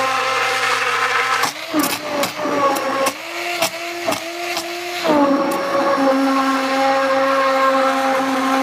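Handheld immersion blender running in a pot of chunky potato leek soup, a steady motor whine. Its pitch drops and wavers, with a few brief breaks, from about one and a half to five seconds in, then runs steady and higher again.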